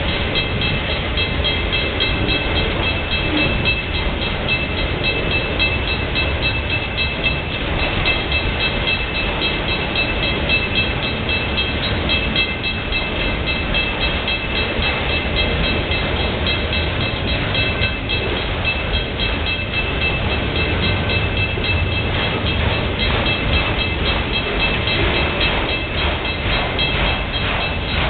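Freight train of autorack cars rolling past: a steady rumble of steel wheels on rail, with wheel clacks over the rail joints becoming more distinct in the last few seconds. A grade-crossing bell rings steadily over it.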